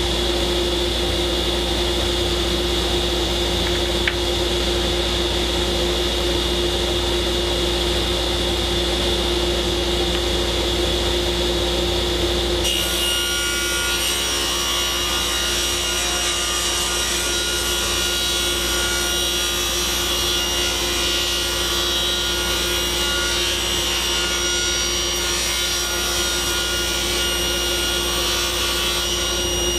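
Table saw ripping cedar strips, its motor and blade running steadily together with a shop dust collector; the sound shifts in tone about halfway through.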